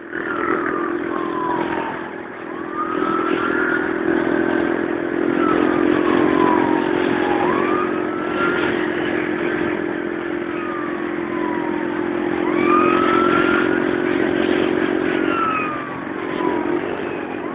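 Motorcycle engine running steadily at cruising speed, with wind and road noise, while a siren wails in slow up-and-down sweeps of a couple of seconds each.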